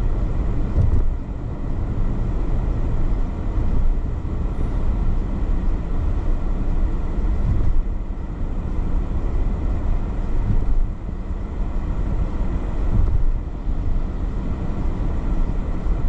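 Steady road noise inside a moving car's cabin: tyres on a wet road and the engine, a low rumble with a fainter hiss above it.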